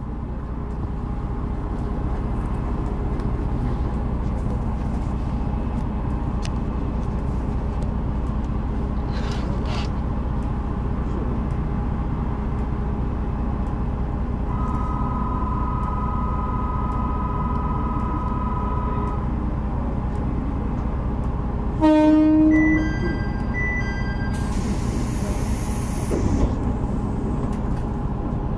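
SKR310-series diesel railcar idling at the station with a steady, low engine hum. A two-note electronic tone sounds for a few seconds about halfway through, then a short horn blast about two-thirds in is the loudest sound, followed by a couple of seconds of hissing air.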